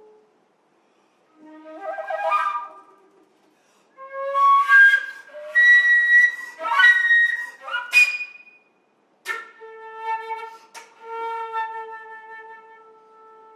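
Solo concert flute playing a slow contemporary piece in separate phrases: a short rising phrase, then a louder flurry of notes ending in a quick upward sweep, then a sharply attacked long held note that slowly fades.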